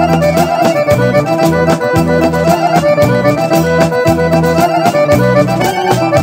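Instrumental passage of a 1980s Serbian folk song: an accordion plays the melody over bass and a steady beat.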